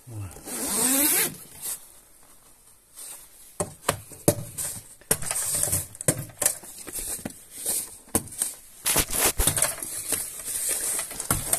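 Handling noise: rustling and irregular clicks and knocks as a hand brushes and tugs at the fabric upholstery lining a boat's cabin side.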